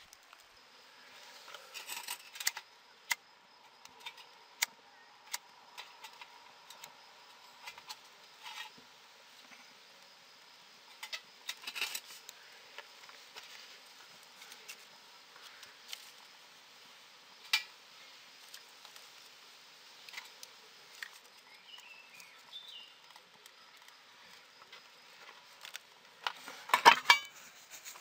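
Sparse sharp clicks and taps of twigs and metal as a small wood-gas camping stove is loaded with kindling and lit, with a louder burst of clatter and rustling about a second before the end.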